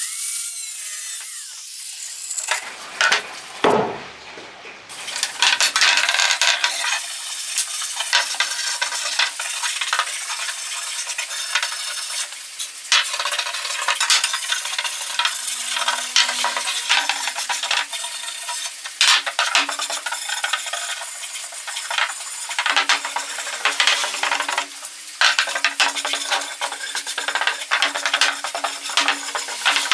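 Electric welding arc crackling and sizzling in runs, with a few short breaks between them.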